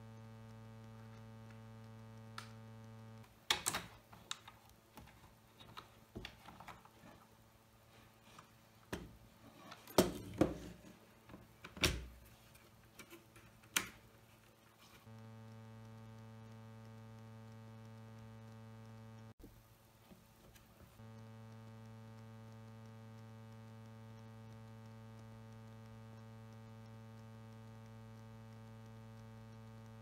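A plastic-bottomed mechanical keyboard being handled and turned over: irregular sharp plastic clicks and knocks between about 3 and 14 seconds in, including its fold-out kickstands and the board being set down. A steady electrical hum runs under it and drops out while the keyboard is handled.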